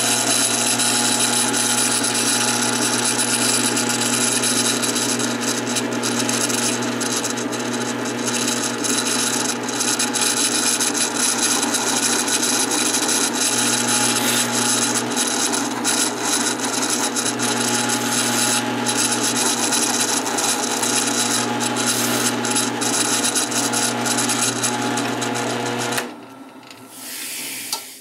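Drill press running steadily while its Forstner bit bores a hole into an oak wheel disc, with light crackling of the cut. The motor is switched off about two seconds before the end and the sound drops away quickly.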